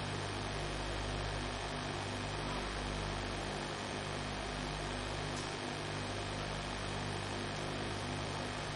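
Steady electrical mains hum with a layer of hiss, the background noise of the recording.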